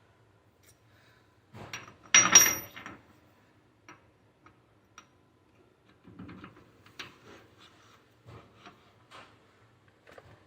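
Metal tools and parts being handled, clinking and knocking, with one loud ringing metal clank about two seconds in and a few smaller rattles later on.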